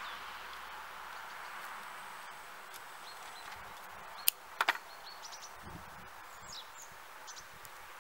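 Scissors snipping through lavender stems: one sharp snip about four seconds in, followed quickly by two more, with soft rustling of the sprigs being handled.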